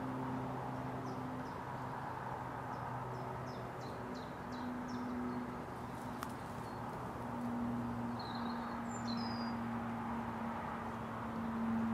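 Small songbirds calling in short, high chirps, a quick run of them in the first few seconds and a few more about eight to nine seconds in, over a low steady hum and outdoor background noise.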